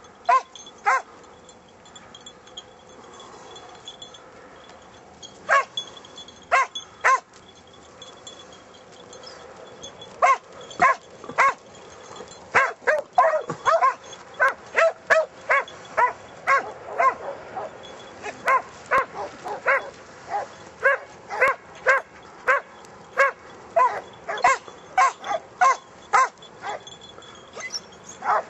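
Scent hounds baying on a hare hunt: a few scattered barks, then from about ten seconds in a fast, steady run of baying, as hounds give tongue on a trail.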